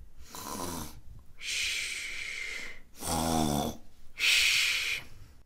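Comic snoring, twice over: each time a short, low, rattling snore followed by a long hissing out-breath.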